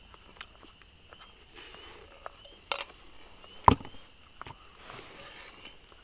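Fork clinking against a metal pan, then the pan set down on a table with one louder knock a little past halfway, among smaller scattered clicks.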